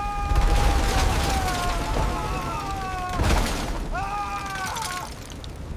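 Two long, high screams from a person, each held and slowly falling in pitch, over a heavy low roar of storm wind and water. A crash cuts in about three seconds in.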